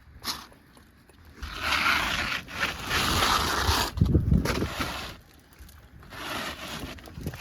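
New asphalt shingle being slid in under the overlapping course, its gritty surface scraping against the shingles in two long pushes, with a few low thumps between them.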